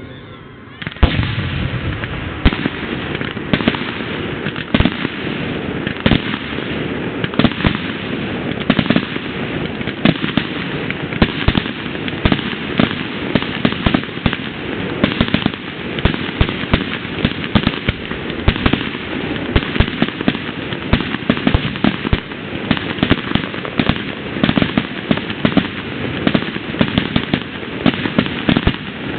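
Fireworks going off without a break: a dense, irregular run of cracks and pops that starts suddenly about a second in and keeps on throughout.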